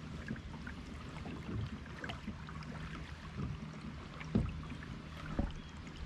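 Water gurgling and trickling along the hull of a Hobie Compass kayak as it moves across calm water, with small splashy ticks throughout and two soft low knocks near the end.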